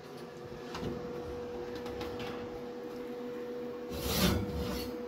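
A kitchen oven door is pulled open about four seconds in, with a short clunk and rush of noise. A steady appliance hum runs underneath throughout.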